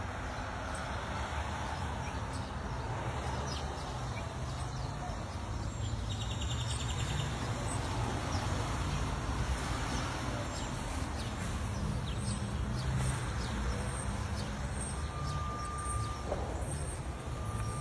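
Steady street traffic with cars passing, and a few faint bird chirps over it.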